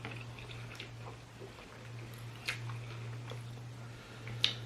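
Close-up eating sounds: chewing a mouthful of curry rice with fish, with a few scattered sharp clicks, the loudest near the end, over a steady low hum.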